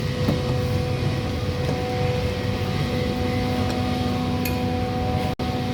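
Steady mechanical hum with a low rumble and two held tones, dropping out for an instant near the end.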